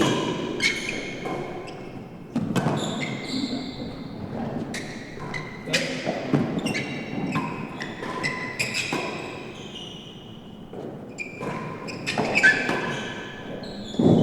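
A real tennis rally: a quick run of ball impacts off rackets, walls and the penthouse roof, each knock ringing briefly in the hall.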